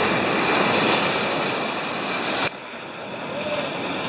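Ocean surf breaking and washing up the beach in a steady rush of noise. The level drops abruptly about two and a half seconds in.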